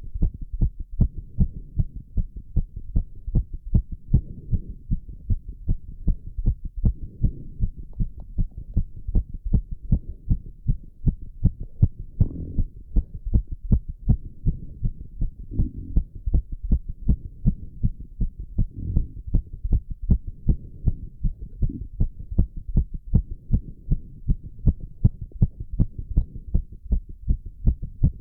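A man's heart beating fast and hard, the sharp thumps coming in a quick, even rhythm and raised by the exertion of squats. Heavy breaths swell faintly under the beats now and then.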